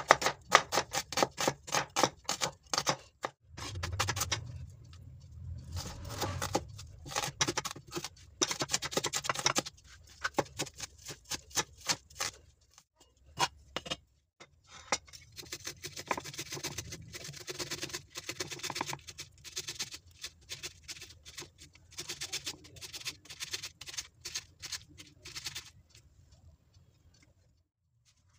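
Kitchen knife chopping onions on a wooden cutting board: fast runs of sharp knocks as the blade strikes the board, with short pauses between runs.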